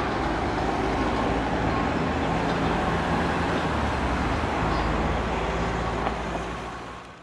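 Steady vehicle engine and road traffic noise with a low hum, fading out near the end.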